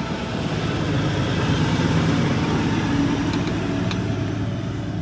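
A steady low mechanical hum, with a few faint light clicks about three and a half to four seconds in.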